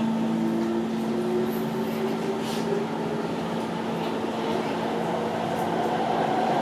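MRT train's traction motors and their electronic drive whining as the train accelerates: one steady hum held under a tone that climbs slowly in pitch, with a higher whine rising in over the last second or so. This is the 'weird' motor sound of train 1043.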